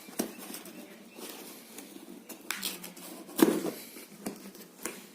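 A cardboard phone box being handled and worked at: scattered taps, scrapes and light rustles, with one louder knock about three and a half seconds in.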